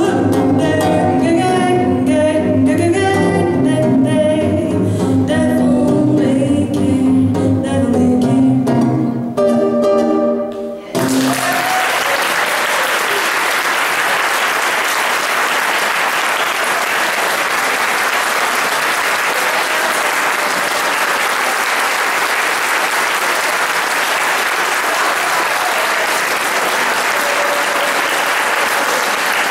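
A woman singing with an archtop jazz guitar through the last phrases of a song, which ends about eleven seconds in; then an audience applauds steadily.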